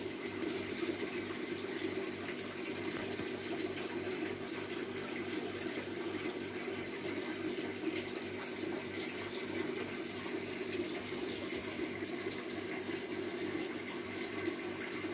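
Aquarium water circulation running: a steady, even rush of moving water with a low hum underneath.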